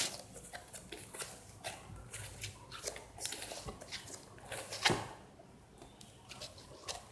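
Butter slime made with super clay being squished and stretched by hand: faint, scattered small clicks and pops, with one louder pop about five seconds in.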